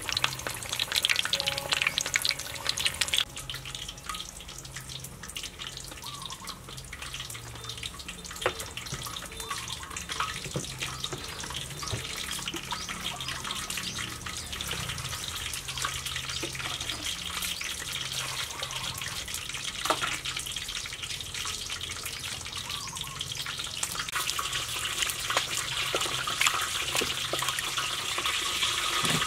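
Hot oil crackling around a whole chicken deep-frying for the first few seconds, then water splashing and trickling as lettuce and leafy greens are washed by hand in a basin and a perforated colander.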